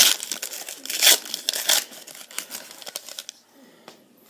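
Wrapper of a football trading card pack being torn open and crinkled, in quick crackles that are loudest in the first two seconds, then thin out and fade to quiet a little over three seconds in.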